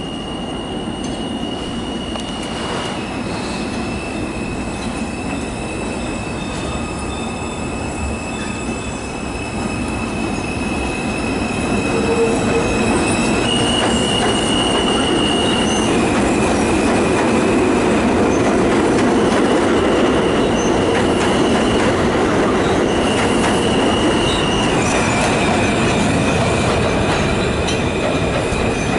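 R160 subway train rounding a tight curve on elevated track, its steel wheels squealing over the rumble of the cars. The squeal is a high, steady tone that jumps between two pitches several times. The sound grows louder about 12 seconds in as the train passes close.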